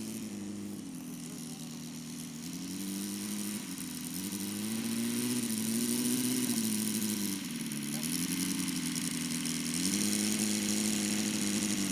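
The 53 cc horizontally opposed four-stroke gasoline engine of a large RC model plane running, its pitch rising and falling slowly several times.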